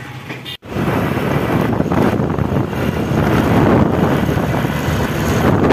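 Hero Honda CBZ Xtreme motorcycle on the move at about 60 km/h: its single-cylinder engine running under load, mixed with heavy wind rush on the microphone, starting suddenly about half a second in. No humming from the speedometer, whose fault has just been repaired.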